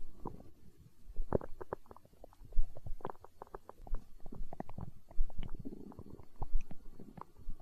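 Human stomach growling and gurgling with the hunger sounds of an empty stomach: quick runs of small bubbling pops and squelches. Under them runs a low thump about every second and a quarter.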